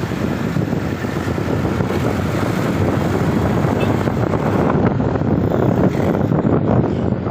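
Steady road and wind noise from a moving vehicle, with wind buffeting the microphone; no horn is sounding.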